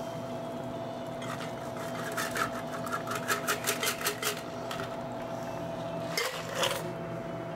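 A cocktail strained from a metal shaker tin through a strainer into a coupe glass: the ice inside rattles against the tin and strainer in a quick, even clatter of about five clicks a second, from about a second in until about halfway through, then a couple of clinks near the end, over a faint steady hum.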